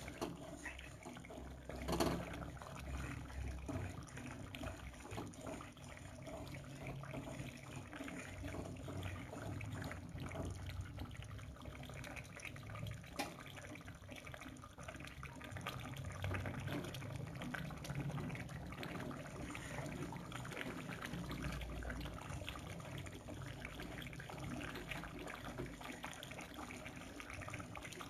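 Water at a rolling boil, a continuous bubbling and popping with a low rumble underneath; a louder pop comes about two seconds in.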